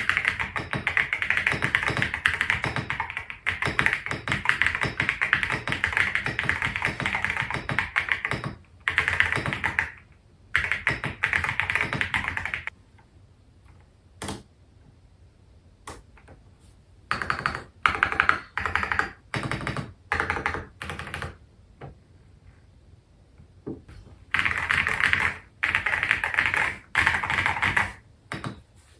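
GMK67 mechanical keyboard with Holy Panda tactile switches being typed on: fast, continuous typing for about eight seconds, then short bursts and single keystrokes with quiet pauses between them.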